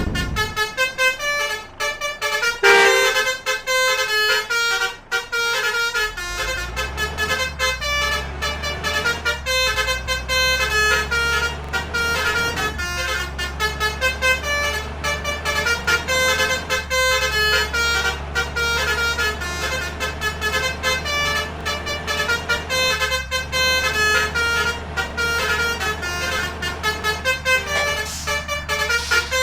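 Basuri multi-tone musical air horn playing a rapid, repeating 'telolet' melody of short pitched toots. A low steady drone comes in underneath about six seconds in.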